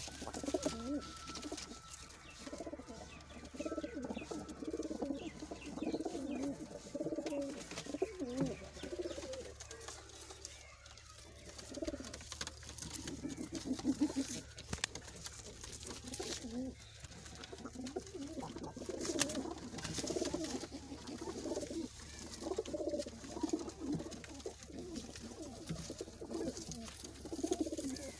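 Domestic pigeons cooing over and over, with a short lull about ten seconds in.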